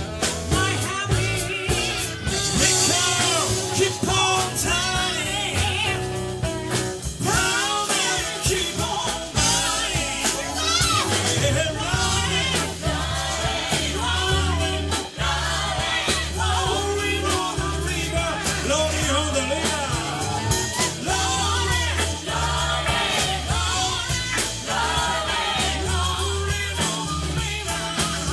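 Live band playing a rock-and-soul song, with singing over drums, bass, guitars and keyboards.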